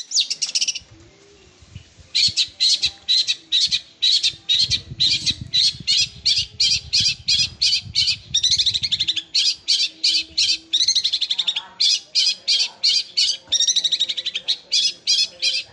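Long-tailed shrike (cendet) singing a fast run of short, harsh chattering notes, about three or four a second, in a house sparrow-like chirping rattle likened to a sewing machine. The run pauses briefly about a second in, then carries on without a break.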